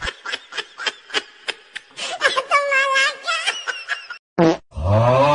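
Edited-in comedy sound effects: a quick run of short laughter-like bursts, then near the end a longer, low buzzing sound that rises in pitch as it starts.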